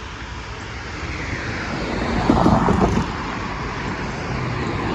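Amtrak Texas Eagle passenger train approaching at speed: a rushing rumble that builds and is loudest about two and a half seconds in, with some clatter at the peak.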